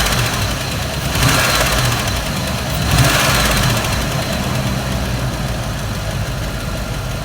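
Rebuilt 4.0-litre V8 of a 2000 Land Rover Discovery 2 at idle, revved twice (about a second in and about three seconds in) and settling back to idle, with a ticking that shows under revs. The owner thinks it is valve-train related, perhaps a sticking lifter.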